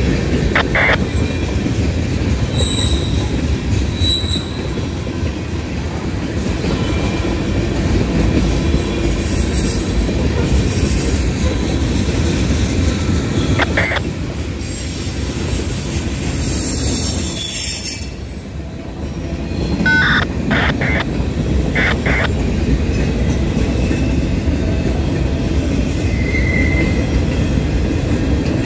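Freight train cars rolling past on the rails: a steady, loud rumble of wheels and car bodies, with a few brief high wheel squeals and short metallic clicks along the way.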